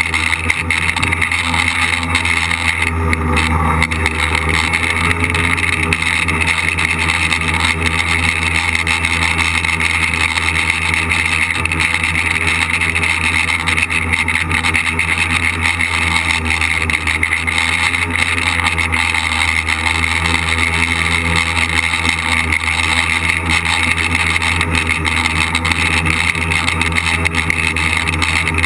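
Tricopter's electric motors and propellers buzzing steadily in flight, heard close from the camera on the craft itself, with a slight change in pitch a few seconds in.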